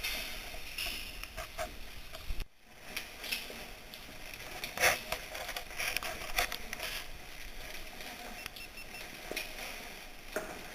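Scattered clicks, clinks and rustles of a caver's rope gear and oversuit while hanging on a rope in a rock shaft, with a sharp knock about five seconds in. The sound cuts out briefly about two and a half seconds in.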